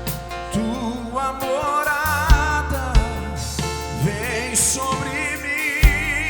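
Live gospel worship band playing: a kick drum, bass, keyboards and guitars, with a voice singing long wavering notes over the band.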